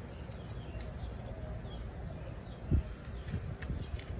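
Birds chirping faintly over a steady low rumble. A few thumps and clicks come from handling near the end, the loudest about two and three-quarter seconds in; the sander is not running.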